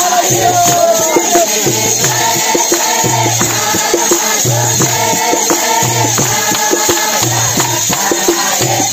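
Congregation singing a Wagdi Christian bhajan together, with hand clapping and jingling small hand cymbals keeping a steady beat of about one accent a second.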